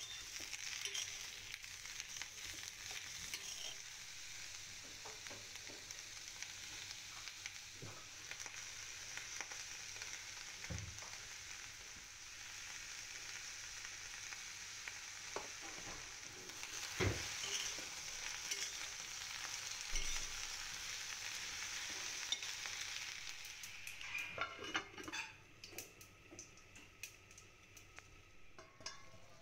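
Sliced radish, onions and tomatoes sizzling in a cast iron kadai while a spoon stirs and scrapes through them, with a few sharp knocks. Near the end there is a clatter and the sizzle drops as a steel lid goes on the pot.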